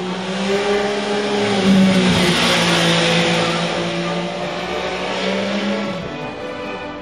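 MV Agusta Rivale 800's three-cylinder engine running hard as the motorcycle goes by. The rush of engine and wind swells to its loudest a couple of seconds in and falls away about a second before the end.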